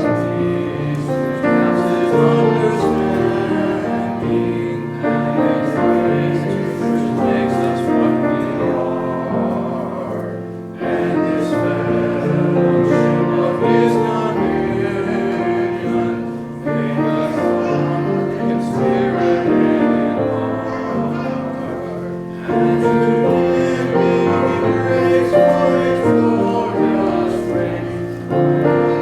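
A hymn sung by several voices with piano accompaniment, in phrases with short pauses between them.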